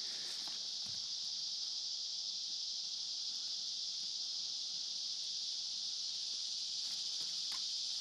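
Loud, steady chorus of insects, a continuous high-pitched buzz that does not let up.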